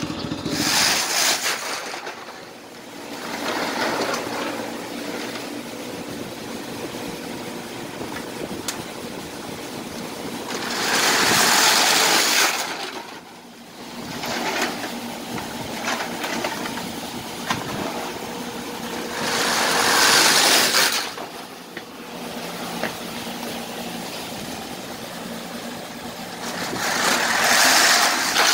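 Full plastic baskets of watermelons rolling along a metal roller conveyor, a rattling rush lasting a second or two that comes several times, roughly eight seconds apart.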